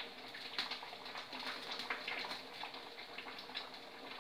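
Faint, irregular crackling and bubbling from pans heating on a gas stove: oil warming in a small tempering pan for a tadka, and a curry on the back burner.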